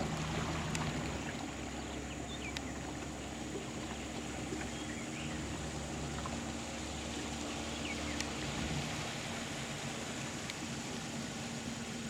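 Boat's outboard motor idling, a steady low hum with a few even tones; its lowest part drops away about three-quarters of the way through. A faint steady high hiss and a few faint chirps sit above it.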